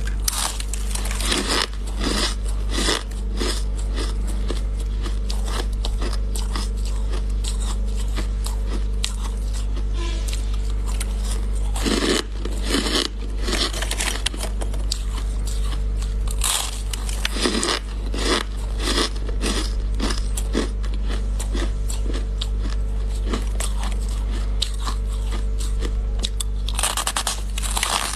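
A person biting and chewing chunks of packed shaved ice: a dense, continuous run of crisp crunches. A steady low hum runs underneath.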